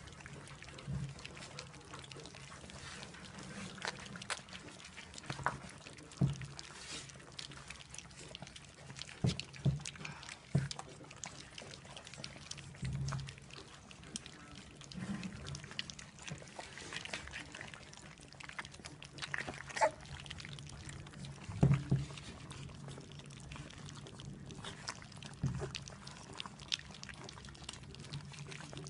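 A litter of puppies eating together from a shared dish: irregular wet lapping, smacking and chewing, broken by frequent short clicks and knocks.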